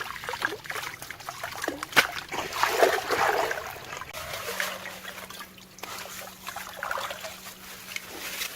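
Water splashing and trickling in irregular bursts, with one sharp knock about two seconds in. A faint steady hum runs under the second half.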